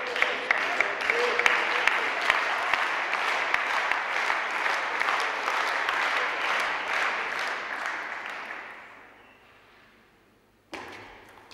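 Audience applauding, with sharp regular ticks about three a second in the first couple of seconds. The applause dies away about eight to nine seconds in, and a new sound starts abruptly just before the end.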